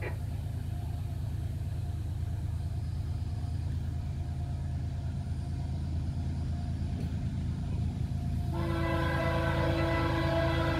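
Low steady rumble of an approaching diesel freight train, then about eight and a half seconds in the lead GE ES44AH's Nathan K5HL air horn starts a held blast, several tones at once. The horn is fouled, so its chord does not sound clean.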